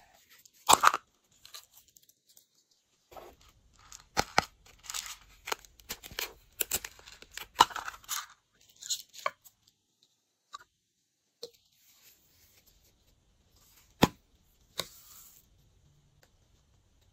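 Plastic containers being handled and opened: sharp clicks, with a dense stretch of crackling and crinkling in the first half and scattered clicks after.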